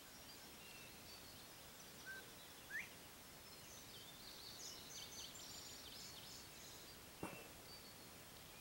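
Quiet rural evening ambience with faint distant birdsong: a single rising whistled note near three seconds in, then a run of quick high twittering notes. A sharp click about seven seconds in.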